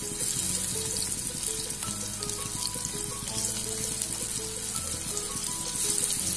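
Spice-coated drumstick (moringa) pieces sizzling in hot oil in a nonstick pan as more pieces are laid in: a steady frying hiss. A simple background melody plays over it.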